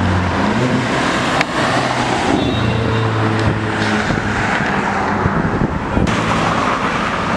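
Car engines running and tyre noise as cars drive past on a city road in steady traffic.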